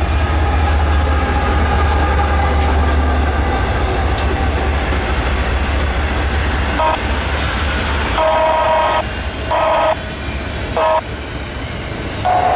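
Diesel locomotive rumbling close by, then its multi-chime horn sounding in the second half: a short tap, then long, long, short, long, the pattern of a grade-crossing signal.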